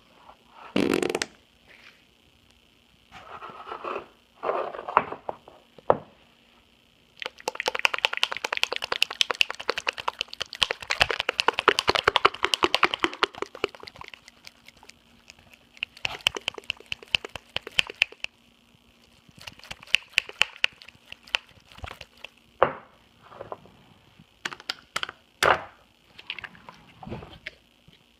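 Slime being squeezed and pressed, squelching and popping with trapped air in fart-like noises. Short squelches near the start, then a long run of rapid crackling pops in the middle, then scattered single pops.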